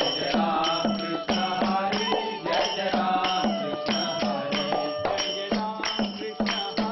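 Group of men chanting a devotional song together, with small hand cymbals struck in a steady beat of about three strikes a second, each strike ringing briefly, and a small drum alongside.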